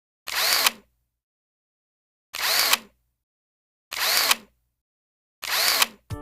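The same short mechanical sound effect, about half a second long and ending in a sharp click, played four times with dead silence between. Background music with sustained notes begins just at the end.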